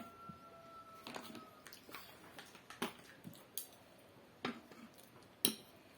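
Eating noises: a scattered series of short clicks and smacks from chewing and utensils on a dish. A ringing tone from a struck bowl or dish fades out in the first second and a half.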